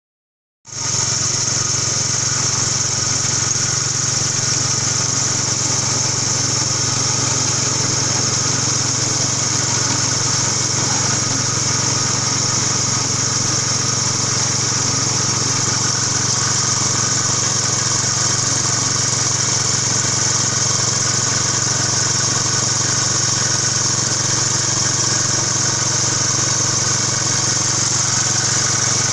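Motor-driven fish meat grinder running steadily with a constant engine-like drone while fish is fed through and pushed out as minced strands. The sound starts abruptly under a second in.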